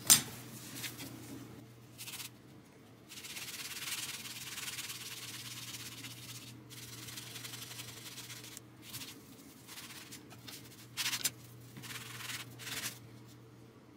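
A rag rubbing back and forth over a chrome-plated Telecaster control plate, buffing metal polish into the grime. It makes a steady scratchy rubbing noise for several seconds at a time, with shorter scrubbing strokes before and after.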